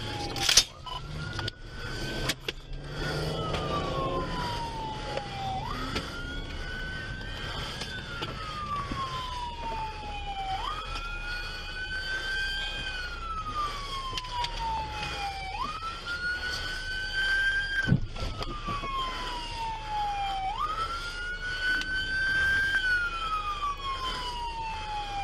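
Police car electronic siren in wail mode, each cycle a quick rise and a slow fall lasting about five seconds. There are a few knocks in the first couple of seconds and one sharp knock about three-quarters of the way through.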